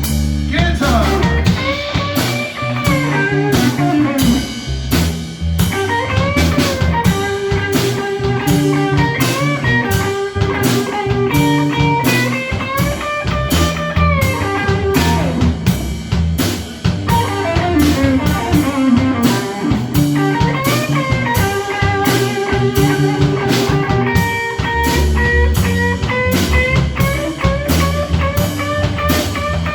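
Live electric blues band playing a slow blues: an electric guitar plays lead lines full of bent notes over drum kit and bass.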